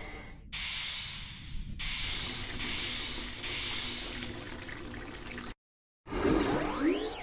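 Cartoon sound effect of spraying water, a steady hissing rush that runs about five seconds and cuts off abruptly. After a short silence comes a brief whooshing sound effect with a rising whistle.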